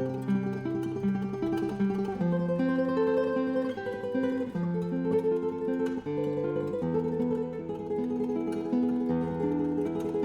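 Background music: a plucked string instrument, guitar-like, picking out a melody of held notes over a slow-changing bass line.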